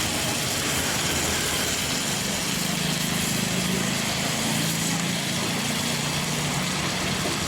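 A small engine running over a steady hiss, its low hum swelling for a few seconds in the middle.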